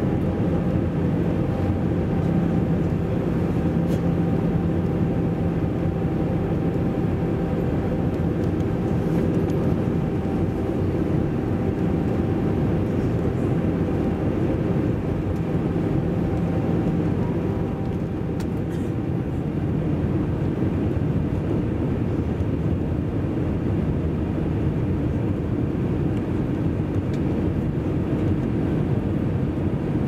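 Cabin noise of an Airbus A320 on approach, heard from a window seat beside the wing: a steady rush of airflow over a low rumble and the hum of its CFM56 engines. The engine hum tones fade out a little past halfway, leaving mostly the airflow rush.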